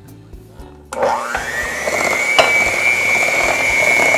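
Electric hand mixer switched on about a second in, its motor whining up to speed and then running steadily as the beaters mix flour and milk into a thick dough in a glass bowl.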